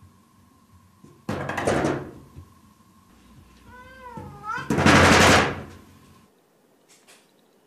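A cat at a frosted-glass sliding door, the door rattling and banging loudly twice, about a second and a half in and again near the middle. One short meow that rises and dips comes just before the second bang.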